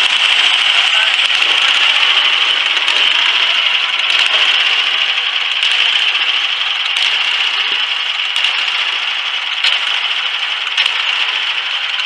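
Homemade bandsaw sawmill cutting through a log: its small gas engine running steadily and the band blade sawing the wood, growing slightly fainter, with sharp ticks about every second and a half.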